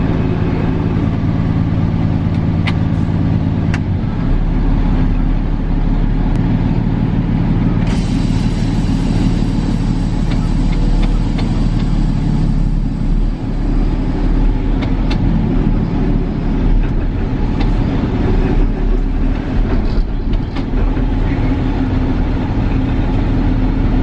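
Freightliner M2 truck's diesel engine running, heard from inside the cab. About four seconds in a deep low rumble joins it and stays as the truck is driven.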